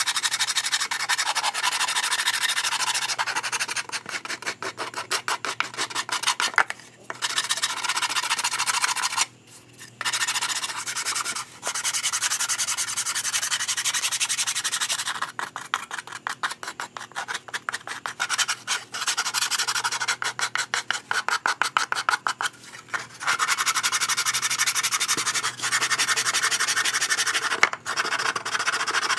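Sandpaper rubbed by hand over a thin plywood panel in fast back-and-forth strokes, a dry scratchy rasp that stops briefly a few times.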